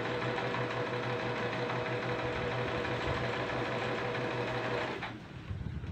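Household electric sewing machine stitching, running at a steady speed, then stopping abruptly about five seconds in.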